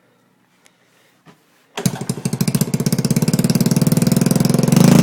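A Honda 70cc quad's small single-cylinder four-stroke engine starts about two seconds in and runs with a fast, even putter through the muffler with its baffle still in, getting louder near the end as it is given some throttle.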